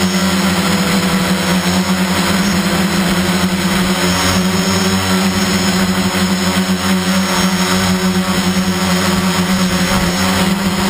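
Motor and propeller of the radio-controlled aircraft carrying the camera, running at a steady pitch with a constant hum and a rushing hiss of air.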